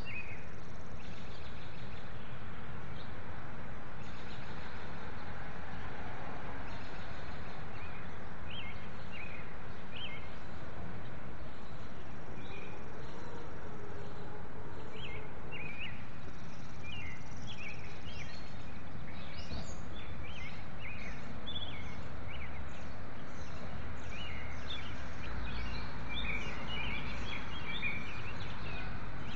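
House sparrows chirping in short, scattered calls, more often in the last third, over a steady low background of street noise; a low rumble swells near the end.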